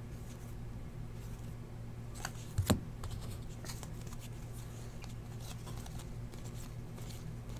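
Football trading cards being flipped through by hand: soft flicks and slides of card stock against card stock, with a sharper double tap about two and a half seconds in. A faint steady low hum runs underneath.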